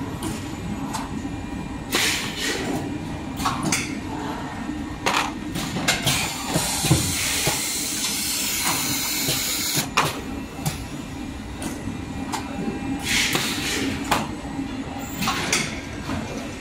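Rotary-table high-frequency welding and cutting machine running: a steady low hum, with sharp hisses of compressed air from its pneumatic cylinders every few seconds and one longer hiss about seven seconds in.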